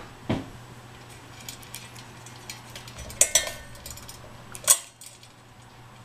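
Hunter Lexington ceiling fan's pull chain being worked: the metal ball chain jingles and the switch clicks about three seconds in and again near five seconds. The fan motor's steady low hum stops right after the second click, as the pull-chain switch changes the motor's setting.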